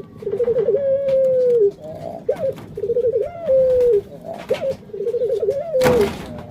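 Young Barbary dove (burung puter) cooing in repeated phrases, three in all: each is a quick stuttering run of notes that leads into a long held note dropping at the end, with short single coos in between. A brief burst of noise near the end.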